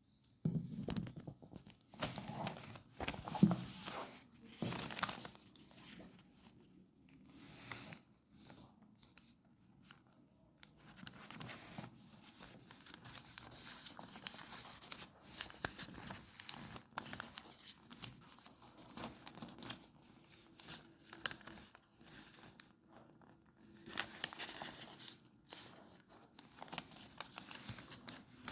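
Craft materials being handled, torn and crinkled by hand: a run of irregular rustling and ripping sounds, loudest in the first few seconds and again near the end.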